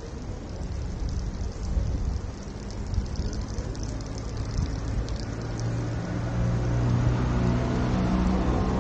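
A steady hiss with a vehicle engine's low hum building up from about halfway through and growing louder toward the end, as a car or other vehicle draws near.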